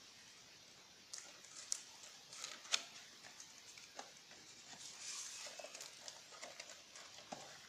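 Faint handling of packaging: irregular clicks and rustles as a plastic-wrapped cardboard box is opened by hand and its flap lifted, with one sharp click a little under three seconds in and a short rustle around five seconds in.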